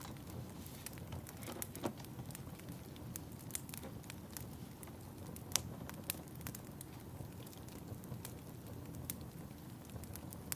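Wood fire in a fireplace crackling, with a steady low rumble under irregular sharp pops and snaps; one pop a little past halfway is the loudest.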